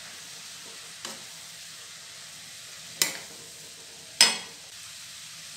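Chopped vegetables sizzling gently in a nonstick kadai while a metal spatula stirs them. Three sharp knocks of the spatula on the pan come about one, three and four seconds in, and the last is the loudest.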